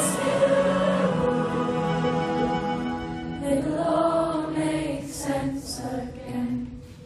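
Live band playing a slow song's closing passage: held chords of vocal harmonies with violin and cello. About halfway through the chord changes, and the music dies away near the end.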